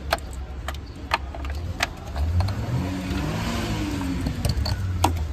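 A motor vehicle's engine passes by, its note rising and then falling through the middle, over a steady low traffic rumble. Several sharp plastic clicks sound as wiring-harness connectors are unclipped in the engine bay.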